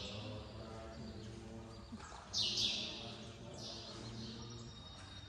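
Buddhist monks chanting in a steady low monotone. A bird's loud falling calls ring out over the chant, twice about two and a half seconds in and more faintly about four seconds in.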